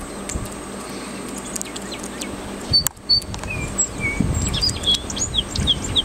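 A songbird singing: a few clear high notes about three seconds in, then a quick run of short falling whistles, over a steady background hiss.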